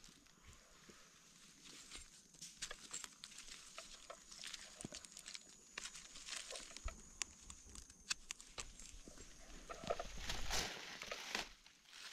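Faint rustling and crackling of dry leaf litter and twigs, with scattered small clicks, as gloved hands and a knife dig around a wild mushroom in forest soil. The rustling grows louder about ten seconds in.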